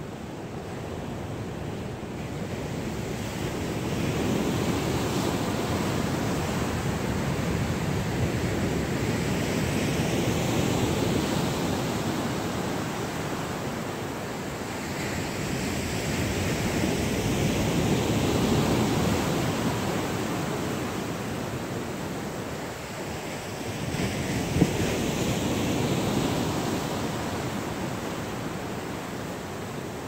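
Ocean surf breaking on a beach: a continuous wash of noise that swells and fades about four times as sets of waves roll in and break. A single brief click comes near the end.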